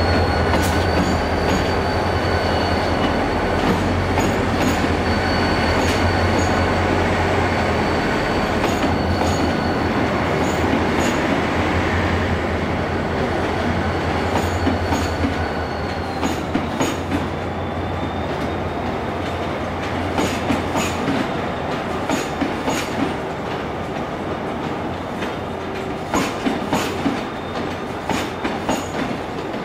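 A Korail diesel locomotive passes with a strong low engine drone and a thin steady whine. Its passenger coaches follow, and from about halfway on their wheels click over rail joints in pairs.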